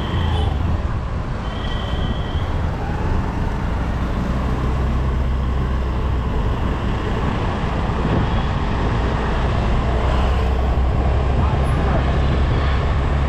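Motorcycle engine running steadily while riding along a town road, with wind and traffic noise heard from the bike. A vehicle horn toots once about two seconds in.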